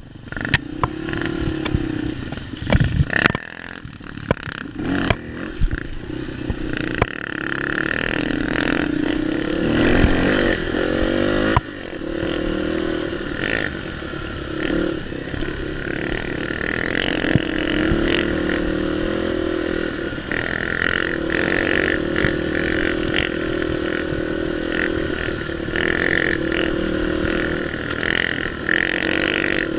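A dirt bike's engine running under way, its pitch rising and falling with the throttle. Sharp knocks and rattles come over the first few seconds and once more near the middle.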